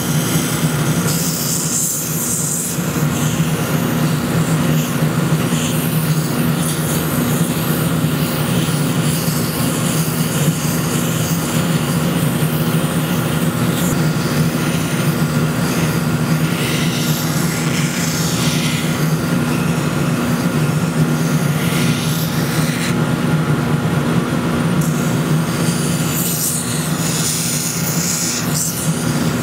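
Oscillating spindle drum sander running with a dust extractor, a loud steady machine hum. The hiss of the wooden spoon being pressed against the sanding drum comes and goes several times.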